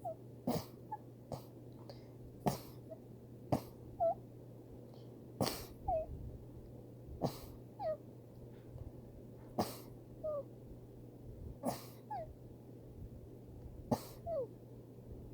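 A person's run of short, stifled sneezes, about nine, one every one to two seconds. Each is a sharp burst of breath, most with a brief high squeak of the voice falling in pitch.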